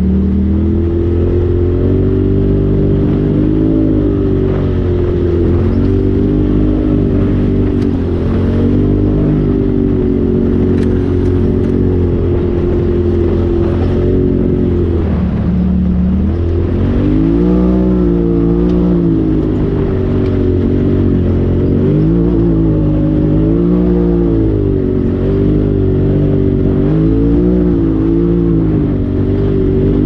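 Polaris RZR Turbo side-by-side's engine running while driving a dirt trail, heard from the driver's seat. Its pitch rises and falls over and over as the throttle is eased on and off, dropping low about halfway through and then revving up and down repeatedly.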